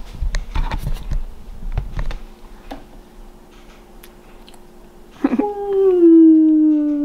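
Clicks and rubbing from a plastic syringe and tubing being handled in the first two seconds. About five seconds in, a loud, long drawn-out vocal call starts and holds, slowly falling in pitch.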